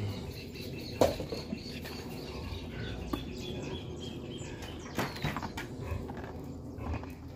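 Faint bird chirps over low background noise, broken by a sharp knock or click about a second in and a few more knocks around five seconds.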